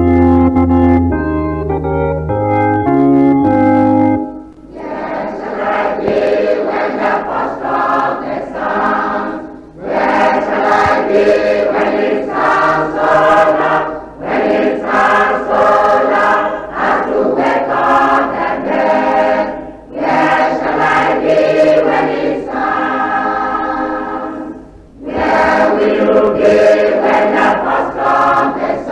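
An organ plays held chords for about four seconds, then a choir sings a hymn in phrases of a few seconds each with short breaks between them.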